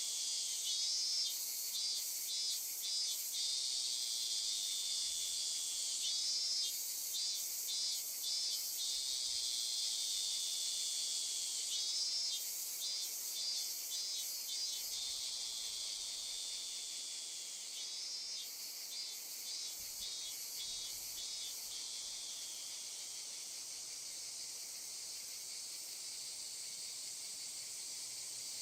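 Insect nature ambience: a steady high buzzing drone, with a burst of rapid chirping repeated about every six seconds, four times, the chirps stopping about three quarters of the way through.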